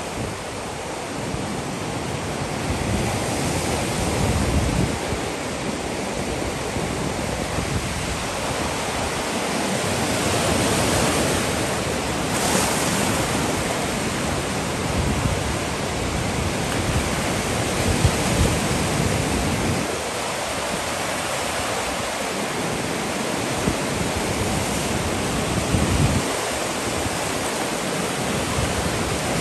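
Waves breaking and washing on a lake beach, a continuous rushing surf, with wind buffeting the microphone in gusts that come and go.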